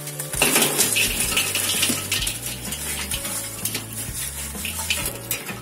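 Red-hot charcoal poured out of a metal chimney starter onto a kettle grill's grate: a rush of clinking, tinkling and crackling coals, loudest in the first couple of seconds, then thinning to scattered clinks.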